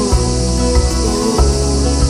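Background music: a slow pop love song with a steady beat and bass, with a short sung vocal line between the lyrics.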